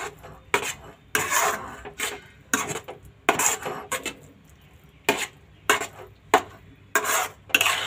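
A spatula scraping and stirring thick, nearly finished rava upma around a kadai, in repeated short strokes about one or two a second.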